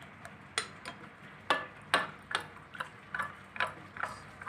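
Metal spoon clinking against a bowl in a steady rhythm of about two to three taps a second as green chutney is stirred into yogurt.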